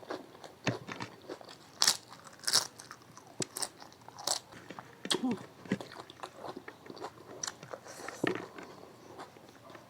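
Close-up mouth sounds of someone eating: irregular wet chewing and crunchy bites, many short crisp clicks at uneven intervals, with a couple of brief low murmurs.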